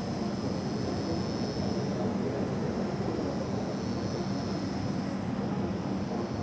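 Pen-style rotary tattoo machine running with a steady hum.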